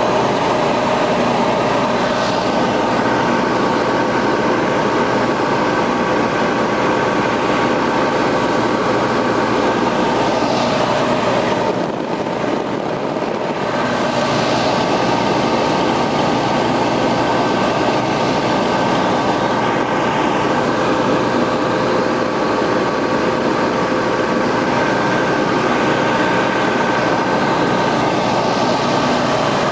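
Ultralight aircraft engine and propeller running steadily in flight, heard from inside the cockpit as a constant drone of several tones over rushing air noise. The sound dips briefly, with less hiss, about twelve seconds in.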